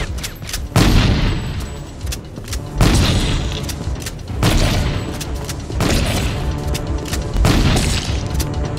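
Film-soundtrack shotgun blasts, five in turn about a second and a half apart, each with a long echoing tail, over an orchestral action score.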